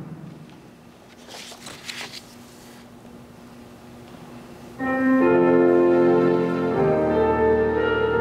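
Faint shuffling, then, about five seconds in, an organ starts playing sustained chords that change once about two seconds later: the introduction to the responsorial psalm after the first reading.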